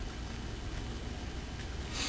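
Angora rabbit chewing parsley: a few faint crunching ticks over a steady low hum, with a brief rustle near the end.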